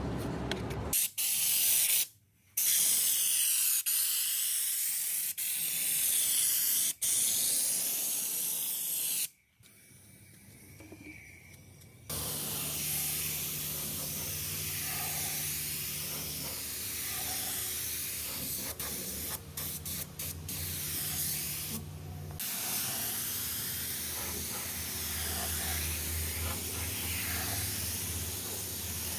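Paint spray gun hissing as compressed air atomizes paint onto a car door, in several stretches with abrupt cuts. From about twelve seconds in, a steady low hum runs under the hiss.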